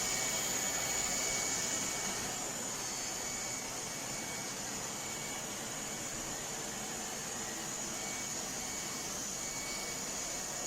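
Robot vacuum running: a steady suction-fan hiss with a high whine, easing slightly about two seconds in.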